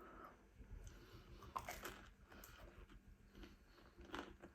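A person chewing food close to the microphone: faint, irregular wet mouth sounds with soft crunches, the clearest about a second and a half in and again near the end.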